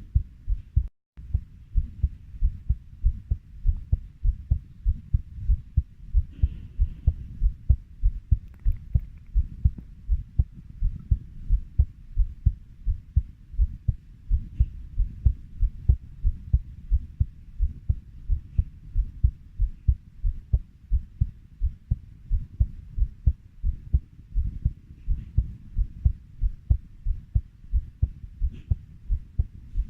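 Heartbeat at a steady 90 beats per minute: low paired lub-dub thumps, about three a second, with a brief dropout about a second in.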